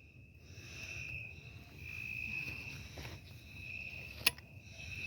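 Crickets trilling steadily in a high, slightly pulsing tone, with a single sharp click about four seconds in.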